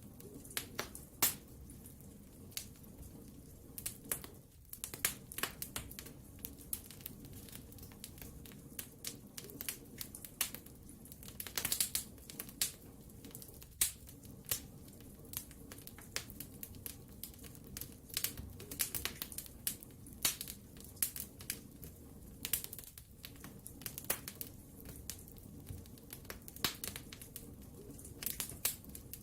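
Wood fire crackling, with frequent sharp irregular pops and snaps over a low steady rumble of flames.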